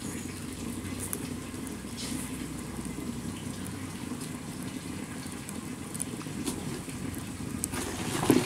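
Open wood fire burning under a lidded cooking pot: a steady low rush with scattered small crackles, and a sharper knock near the end.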